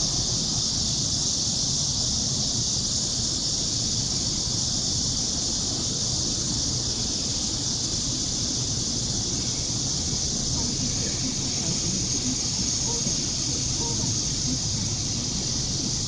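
Chorus of Korean blackish cicadas (Cryptotympana atrata) giving a steady, high, unbroken buzz, louder than everything else. A low rumble from a passing metro train lies underneath.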